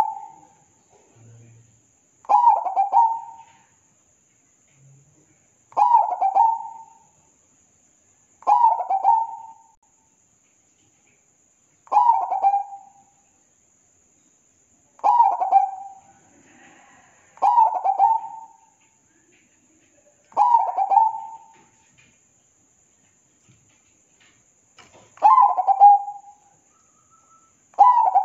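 Zebra dove (perkutut) cooing. Each call is a phrase of about a second made of rapid pulsed coo notes, repeated about every three seconds, some nine times.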